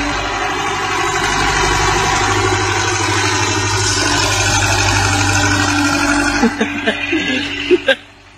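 Heavy machine's engine running steadily under mechanical clatter. Several sharp knocks come near the end, then the sound cuts off.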